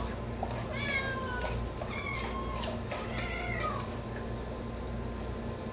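Cats meowing: a string of separate meows, about one a second, many falling in pitch, then a pause near the end. A steady low hum runs underneath.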